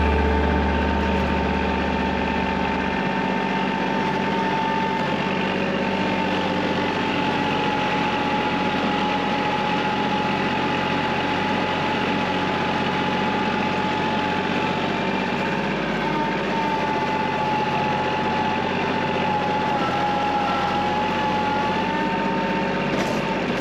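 Kubota tractor's diesel engine running steadily under snow-clearing work, with a steady high whine over the engine note.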